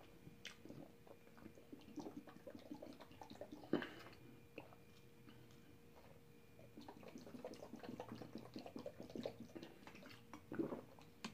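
Faint sounds of drinking water from a plastic sports bottle: the cap opened with a click, then soft gulps and small mouth clicks as he swallows.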